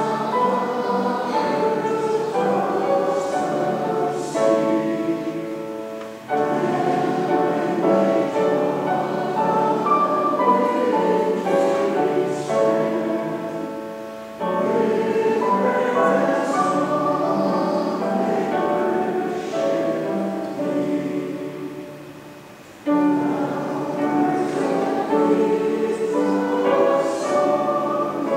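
Congregation singing a hymn with piano accompaniment, in sung lines of about eight seconds, each ending in a short pause for breath.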